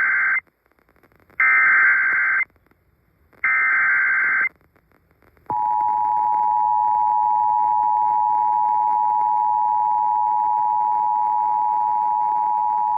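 Emergency Alert System alert on FM radio: the end of one SAME header data burst and two more about a second long each, two seconds apart, then from about five and a half seconds in the steady two-tone attention signal (853 and 960 Hz). Together they open an alert that carries a severe thunderstorm warning.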